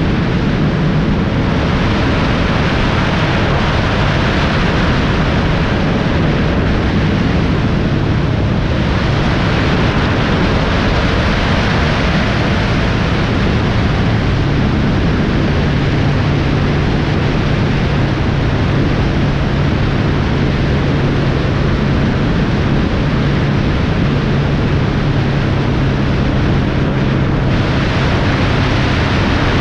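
A vehicle driving at highway speed: a steady rush of road and wind noise over a low, even engine hum.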